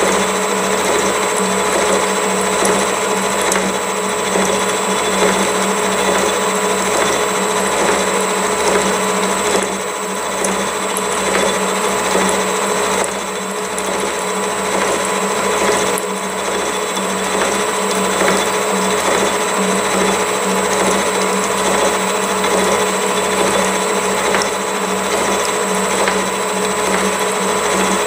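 Gear hob cutting teeth along a metal gear blank on a milling machine set up for hobbing: the machine runs steadily under the cut, a loud even hum with a few whining tones over it and a soft, regular low pulse beneath.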